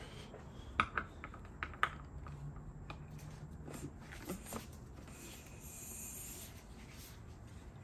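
Oil filter wrench worked on the plastic oil filter housing cap: a few sharp, irregular clicks and knocks of the tool, mostly in the first two seconds, with two more a little later, as the cap is loosened.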